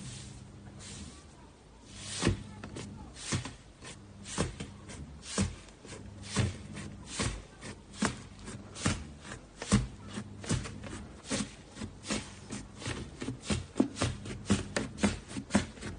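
Iceberg slime being poked and pressed by hand, its set top crust giving sharp crackling pops, about one or two a second at first and coming faster near the end.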